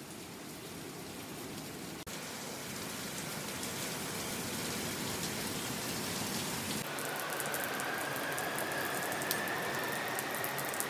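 Steady rain falling, growing slightly louder over the first few seconds. In the last four seconds a faint thin tone, slowly rising in pitch, sounds over the rain.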